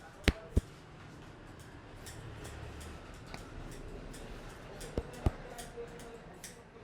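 Sharp cracks made by a barber's hands during a head massage, in two quick pairs: one just after the start and one about five seconds in. Between them is the soft rustle of hands working through hair and over the scalp.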